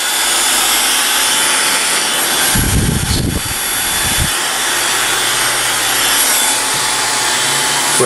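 Dyson Supersonic hair dryer running with its heater off, its motor and fan blowing a steady rush of cold air through the styling concentrator nozzle. A low buffeting rumble comes in for a second or two near the middle.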